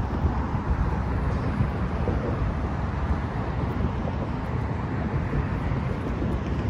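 Steady low rumble of wind buffeting the microphone, mixed with road traffic noise.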